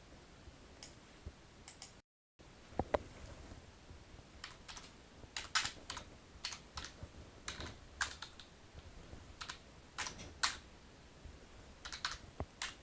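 Typing on a computer keyboard: irregular key clicks, sparse at first and then more frequent, as a command is typed in. About two seconds in, the sound cuts out completely for a moment.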